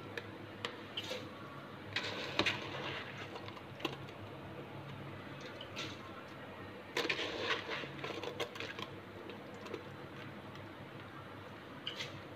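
Kitchen handling sounds: scattered knocks and clatter, bunched about two seconds in and again around seven seconds, as utensils and a mixer-grinder jar are handled while the next batch of soaked rice goes in. A steady low hum runs underneath.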